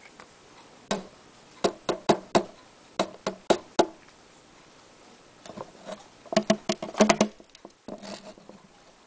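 Sharp taps and knocks on a plastic cricket tub with a hollow ring. They come in two quick clusters: a run of about a dozen in the first few seconds, then a denser burst past the middle.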